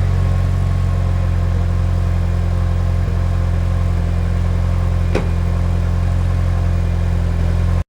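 Mitsubishi Lancer Evolution VII's G-FORCE 2.3-litre turbocharged four-cylinder idling steadily through an HKS Super Turbo Muffler exhaust. A single sharp click comes about five seconds in, and the sound cuts off abruptly near the end.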